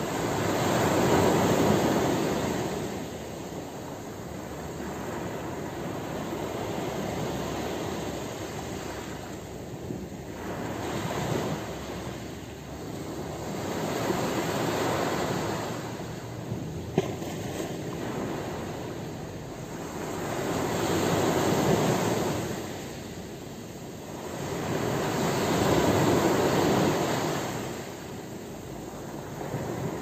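Small ocean waves breaking and washing up a pebbly beach, the surf rising and falling in slow swells every few seconds.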